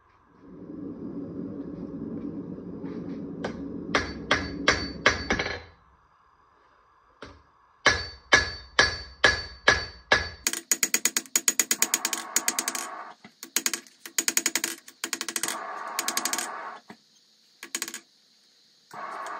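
Hand hammer striking a hot wootz steel chef-knife blade on an anvil, each blow ringing. First come spaced single blows, about two a second, then long runs of rapid, lighter blows. A low rushing noise sits under the first few seconds.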